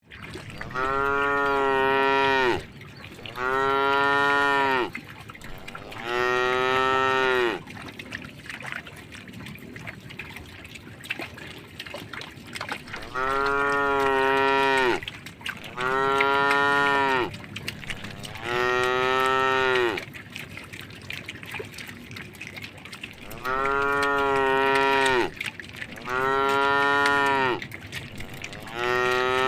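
Cow mooing: nine long, even calls in three groups of three, each lasting a second and a half to two seconds, with pauses between the groups.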